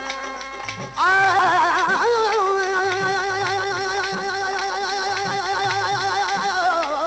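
Sindhi folk song: a steady hand-drum beat, and about a second in a loud, long held note with a wavering vibrato comes in and carries on over it.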